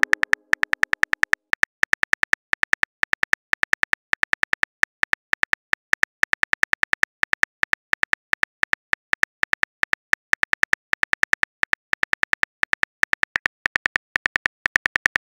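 Smartphone on-screen keyboard typing clicks: a quick, uneven run of short clicky taps, several a second, as a text message is typed out.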